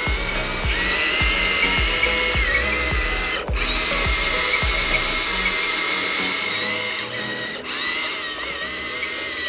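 Electric motors of an RC excavator whining at a high, steady pitch that steps up and down as it works, cutting out briefly twice. Background music with a steady beat plays under it for the first half.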